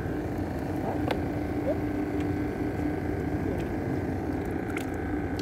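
Boat engine running at a steady hum, with wind and water noise and a couple of faint clicks.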